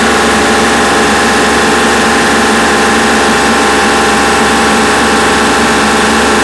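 Kubota L3902 tractor's three-cylinder diesel engine running steadily while its LA526 front loader lifts a load of about 971 lb overhead on pallet forks.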